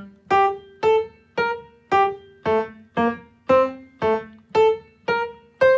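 Piano playing a simple single-line melody in short, detached staccato notes, played loudly, about two notes a second.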